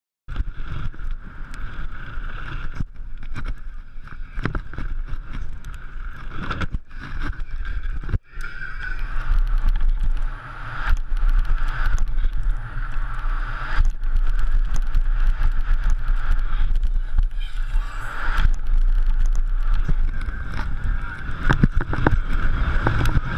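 Mountain bike ridden fast downhill over dirt, heard from a body- or bike-mounted action camera: tyres rumbling and rattling over the ground with many sharp knocks from bumps, and wind rumbling on the microphone. A steady high buzz runs through it, and the sound changes abruptly about eight seconds in.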